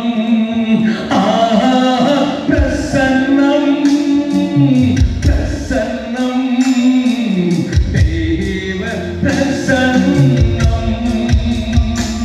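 A man singing a Telugu devotional song into a microphone, with deep instrumental notes underneath that come in after a couple of seconds.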